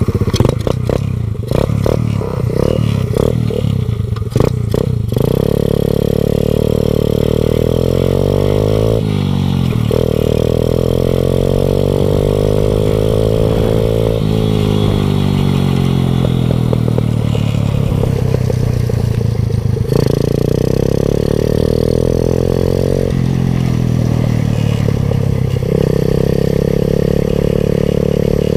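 Small 125 cc four-stroke engine of a motorized beer-crate kart running under way, its pitch rising and falling with the throttle. It sounds choppy with clattering knocks for the first few seconds, then settles into longer steady pulls, with the pitch dropping several times as the throttle is backed off.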